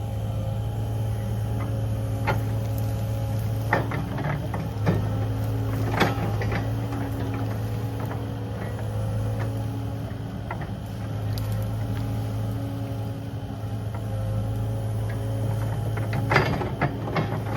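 Kubota KX080 excavator's diesel engine running steadily, with scattered knocks as it works.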